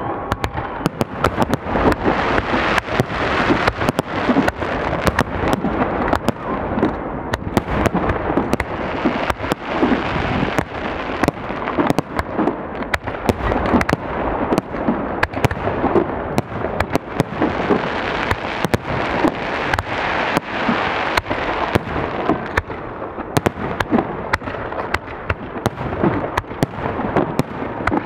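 Fireworks display: a dense, continuous barrage of shell bursts and crackling, many bangs a second over a rumbling wash.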